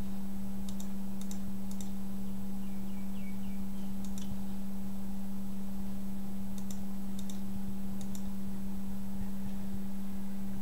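About eight sharp clicks of calculator keys being pressed, in small groups, while a sum is worked out. A steady low hum runs under them.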